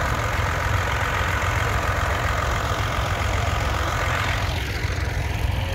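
Tractor engine running steadily with a low rumble; the higher hiss above it eases a little near the end.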